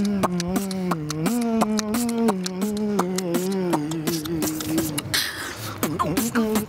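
A man beatboxing: he hums a stepping bass-and-melody line while making quick, rhythmic percussive mouth clicks over it. Near the end the hum breaks off for about a second with a hissing sound, then starts again.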